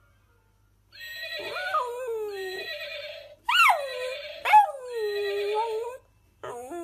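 West Highland White Terrier howling: after a short pause, a long wavering howl, then a longer one that leaps up twice into sharp yelps before settling, and another howl starting near the end.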